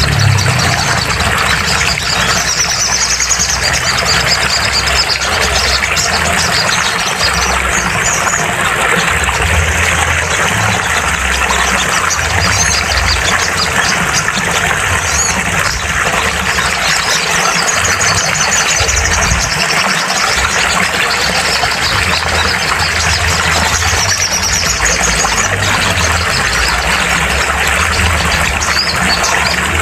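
Sunbird (sogon) song: short, high, twittering phrases that recur every few seconds over a dense steady hiss and a low hum.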